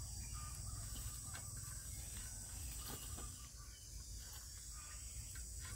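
Faint woodland ambience: a steady high-pitched insect drone over a low rumble, with a few small clicks.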